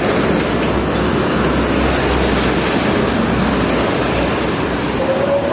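Steady roar of highway traffic: buses and other vehicles passing at speed on a toll road, tyre and engine noise with a deep rumble. A faint steady tone joins near the end.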